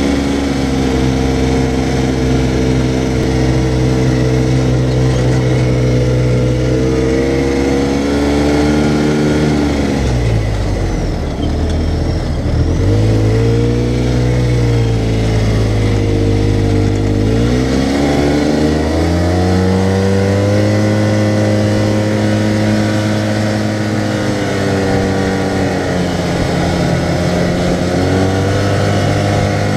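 2014 Arctic Cat side-by-side UTV engine running as it drives, heard from inside the open cab. The engine pitch falls and climbs back twice, around ten and seventeen seconds in, then holds steady at a higher pitch.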